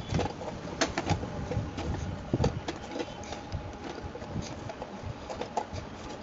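Hands kneading soft spinach chapati dough in a stainless steel bowl: irregular pressing and rubbing, with a few sharp knocks now and then.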